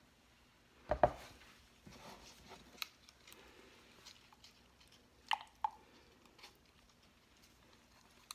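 Soap batter being stirred in a plastic measuring jug, a soft, uneven squishing scrape as powdered colorant is mixed in. It is broken by sharp knocks of plastic as the jugs are handled, the loudest about a second in, and two quick ones close together past the five-second mark.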